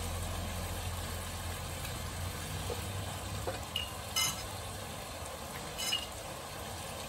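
Seafood and vegetables sizzling in a wok as a wooden spatula stirs them, a steady frying hiss. A few light clinks come about halfway through and again near six seconds.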